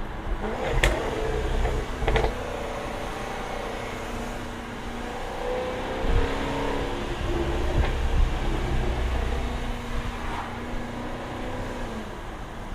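Jaguar F-Type V8 R's supercharged 5.0-litre V8 running on the road, its note rising and falling with the throttle and holding steady near the end. A few sharp exhaust cracks, the first about a second in and another about two seconds in.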